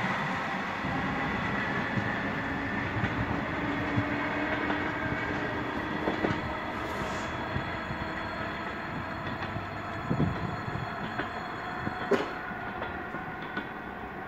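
Russian electric commuter train (elektrichka) pulling away from a station, its running noise slowly fading as it recedes. A few sharp clacks stand out about six, ten and twelve seconds in.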